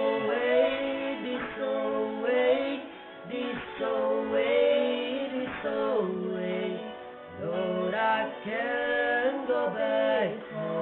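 A sung folk song with instrumental accompaniment, the voice holding long, slowly gliding notes in phrases with short breaks between them.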